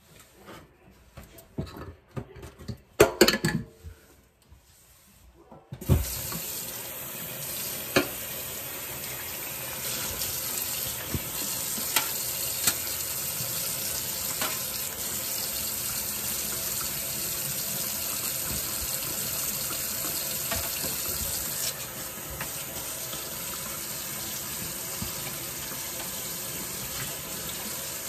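A few clatters and knocks, then about six seconds in a kitchen sink tap is turned on and water runs steadily into the sink, with occasional sharp clinks as dishes are washed under it.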